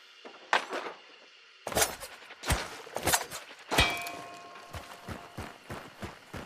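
Throwing knives making a series of sharp metallic impacts and clangs at irregular intervals, some leaving a brief ringing tone.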